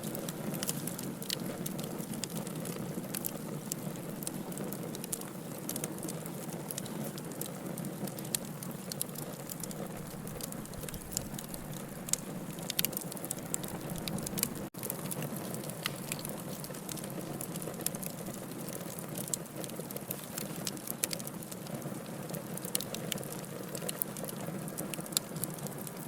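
Wood fire burning in a fireplace: a steady hiss with frequent small, irregular crackles and pops. The sound cuts out for an instant about halfway through.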